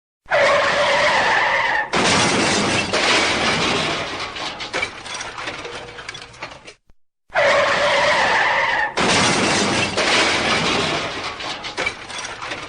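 Car crash sound effect, heard twice: each time about a second and a half of tyre screech, then a sudden loud crash with breaking glass that clatters and fades over several seconds.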